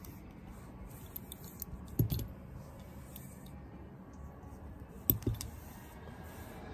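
A few sharp clicks and clacks from handling a retractable dog leash and its nylon tape, two louder ones about three seconds apart, each followed by a smaller click or two.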